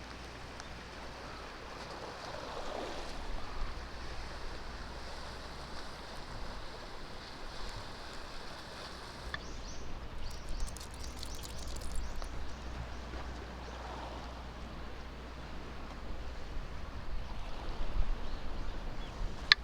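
Steady outdoor noise of water lapping at a bay shore, with a low rumble of wind on the microphone and a few faint brief sounds over it.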